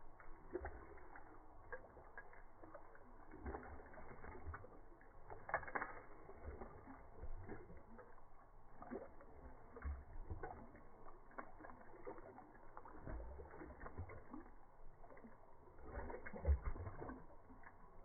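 A Bullmastiff lapping water from a drinking-fountain bubbler, with the splashing water, slowed down and dropped in pitch by slow-motion playback. It comes out as irregular low thuds and short clicks.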